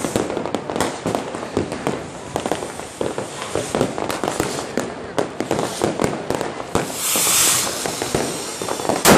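Many fireworks and firecrackers going off in a dense run of cracks and bangs. A hissing whoosh comes about seven seconds in, and a single loud bang near the end.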